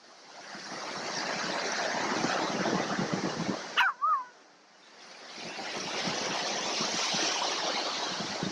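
Surf breaking and washing up the beach in two long swells. About four seconds in, a dog gives one short, high yelp.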